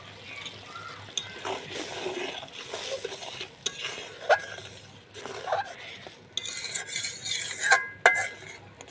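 A spoon stirring a mustard-paste gravy in a cooking pan, scraping, with several sharp clinks against the pan as salt is mixed in.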